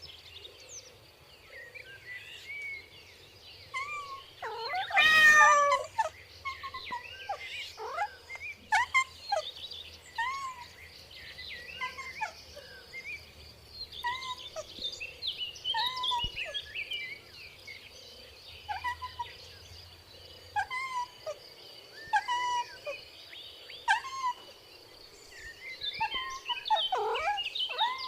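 Kittens mewing over and over: short, high, arched mews every second or two, with one louder, longer meow about five seconds in.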